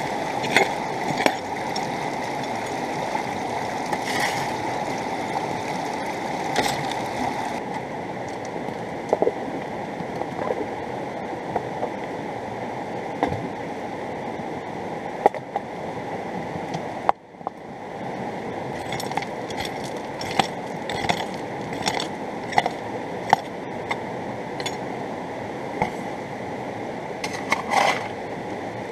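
Steady rush of a river, with scattered sharp clicks and knocks of a rock hammer and stones as gravel is dug out of the bank.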